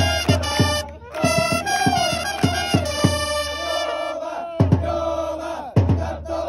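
Japanese pro baseball cheering section: trumpets playing a player's cheer song over a steady drum beat, with fans chanting along.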